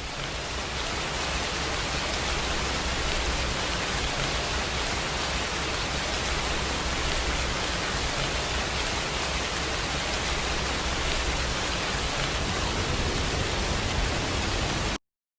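A steady rushing noise, like heavy rain or static, spread evenly from deep to high pitches, that cuts off suddenly near the end.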